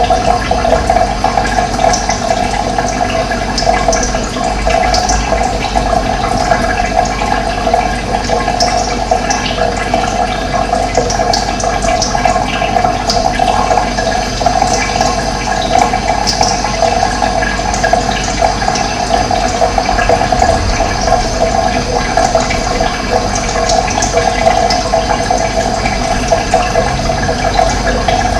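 Running water, a steady rush, with brief high bird chirps scattered throughout.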